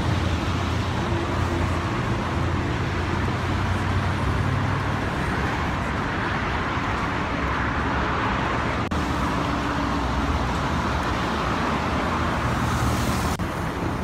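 Steady road traffic noise: car engines humming and tyres running on a city road, with no single vehicle standing out.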